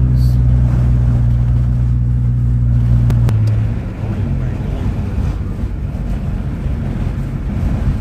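Engine hum and road noise inside a moving car's cabin. A steady low drone gives way, a little over three seconds in after a click, to a rougher low rumble.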